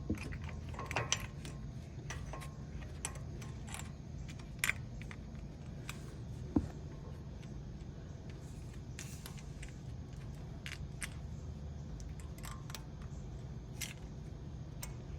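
Scattered light metallic clicks and taps of brake pad hardware, small retaining wires and clips, being handled and fitted into a disc brake caliper, the sharpest click about six and a half seconds in, over a steady low hum.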